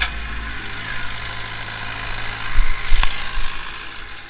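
Pronar 82SA tractor's diesel engine running steadily while pulling a cultivator, with a few heavy thumps and a sharp knock close by about two and a half to three seconds in.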